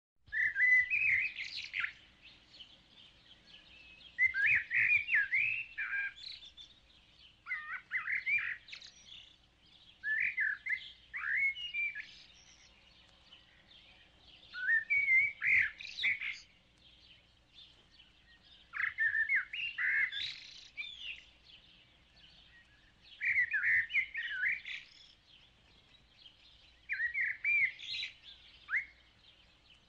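A songbird singing eight short phrases of quick chirps and whistles, each lasting a second or two, with a pause of a couple of seconds between phrases.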